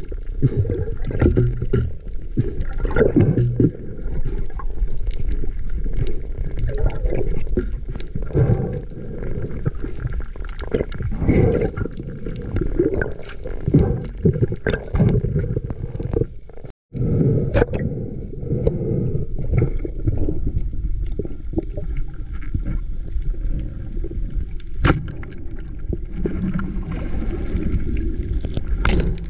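Muffled underwater water noise recorded from inside a camera housing: a dull, low rush with scattered small clicks and knocks. The sound cuts out for a moment about two-thirds of the way through.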